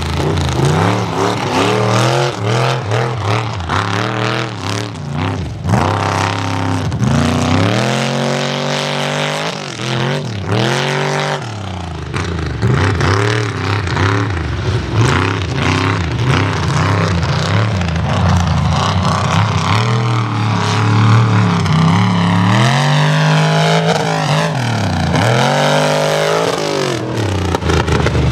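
Mega truck's engine revving hard over and over, its pitch climbing and dropping again and again as the truck is driven through the dirt.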